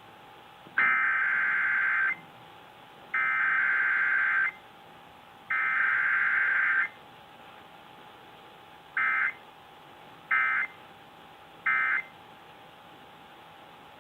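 Emergency Alert System SAME data bursts: three screechy digital header bursts of about a second each, then three short end-of-message bursts about a second and a half apart.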